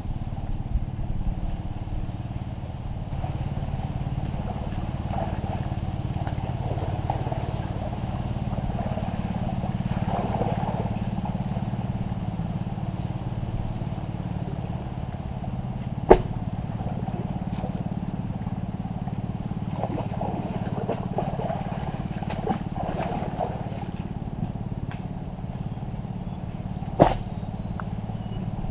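A small engine running steadily, with two sharp knocks, one a little past the middle and one near the end.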